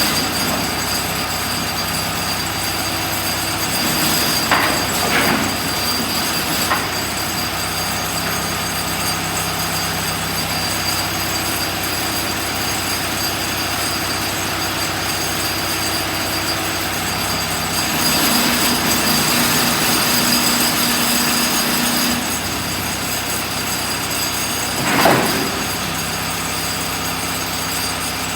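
Case 580C backhoe loader's four-cylinder diesel engine running steadily. Its pitch rises for a few seconds past the midpoint, and a few short sharp noises come early and near the end.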